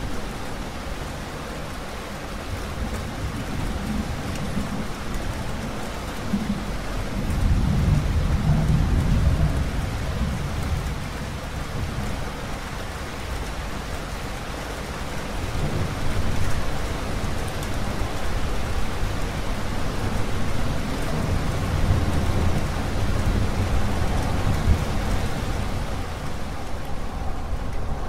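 Steady heavy rain, with deep rolling thunder swelling up twice: briefly about a quarter of the way in, and for longer through the second half.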